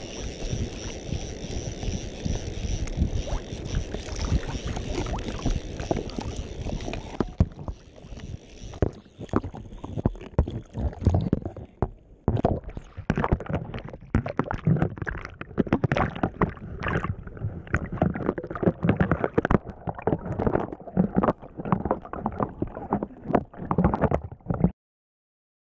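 Water sloshing and splashing around a camera carried at the waterline by a wading angler, with the camera dipping in and out of the surface. A steady rushing noise for the first seven seconds or so gives way to irregular splashes and gurgles. The sound cuts off suddenly near the end.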